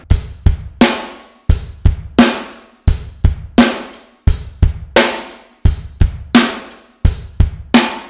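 Electronic drum kit playing a plain, steady basic groove with no ghost notes: bass drum and hi-hat held constant with the snare accented on beats 2 and 4. The strokes fall in a repeating group of three about every second and a half.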